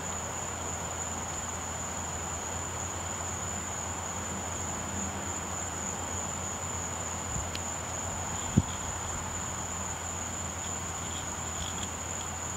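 Insects trilling in one steady high-pitched tone over a low steady hum, with a single short knock about eight and a half seconds in.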